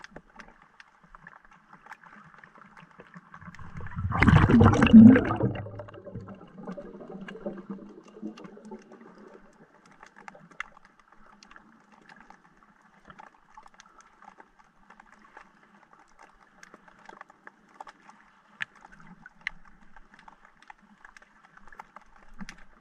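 Underwater audio: a loud gurgle of bubbles running for about two seconds, starting about four seconds in. Otherwise faint underwater crackling with scattered small clicks.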